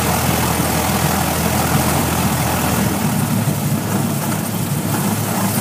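Propeller airplane's engine running at low taxi power, a steady engine hum over a broad hiss; about halfway through the deepest part of the hum drops away as the engine note shifts.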